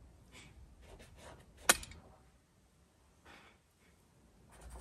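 Faint, short strokes of a paintbrush on stretched canvas, with one sharp click a little under two seconds in.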